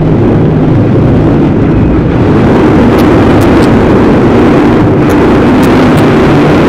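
Dirt-track stock car's engine running loud inside the stripped cockpit, its note shifting and growing a little louder about two and a half seconds in, with a few sharp ticks over it.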